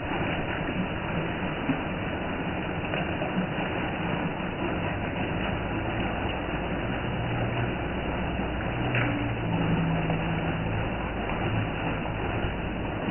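Heavy rain falling steadily on palms, plants and wet ground: a dense, even hiss. A faint low hum joins it from about seven to eleven seconds in.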